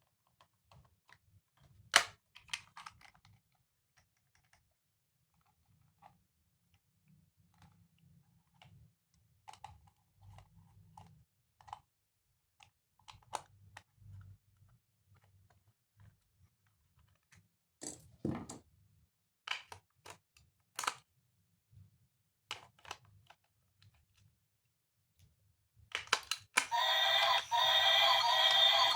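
Scattered clicks and light knocks from a toy train and its packaging being handled, the sharpest knock about two seconds in and a cluster of them around eighteen to twenty-one seconds. Music starts shortly before the end.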